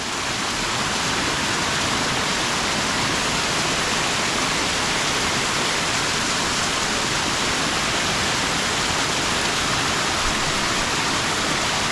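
Steady rushing of a jungle waterfall close by, an even, unbroken roar of falling water.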